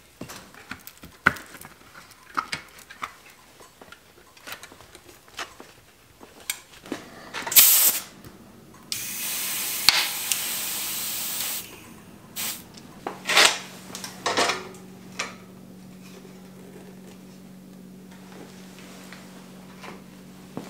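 Clicks and rubbing as a tyre is worked onto a bicycle rim, then a loud steady hiss of air for about three seconds as the tyre is inflated at its valve. After that, a few knocks and a low steady hum.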